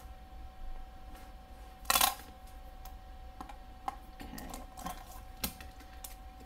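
Diamond painting straightening tool run along rows of round drills on a canvas: scattered light clicks as the drills are knocked into line, with a short louder scrape about two seconds in.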